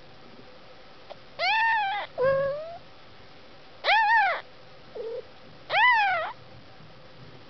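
Newborn kittens mewing: about four short, high-pitched mews, each rising then falling in pitch, spread over a few seconds, with a faint brief squeak among them.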